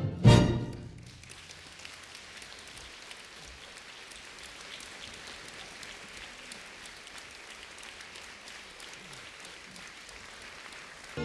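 The orchestra ends on a loud final chord, then a theatre audience applauds steadily for about ten seconds.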